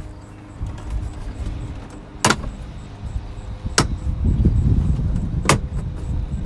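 Interior plastic trim panels being worked loose by hand, with three sharp clicks about a second and a half apart as the panel clips snap free, over low rustling and knocking of the panels being handled.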